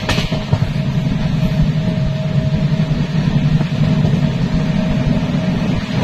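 Janshatabdi express passenger coach running at speed, heard from its open doorway: a steady low rumble, with a brief knock right at the start and a faint steady whine above it.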